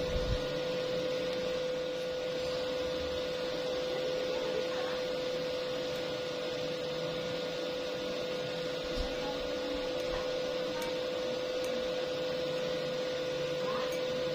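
A steady machine hum: one constant tone over an even hiss.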